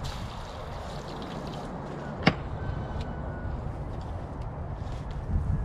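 Water running steadily from a tap, rinsing wood splinters off chopped wild-pig bones, with one sharp knock about two seconds in.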